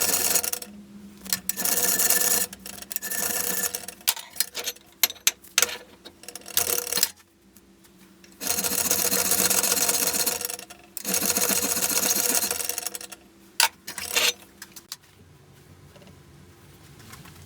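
Power grinder working steel in repeated bursts of one to three seconds, with sharp clicks and knocks in the gaps between them.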